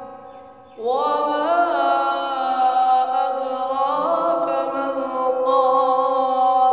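A boy's voice reciting the Quran in melodic tajweed style (qirat). A long chanted phrase begins about a second in, after a short pause, its drawn-out notes bending up and down in ornaments.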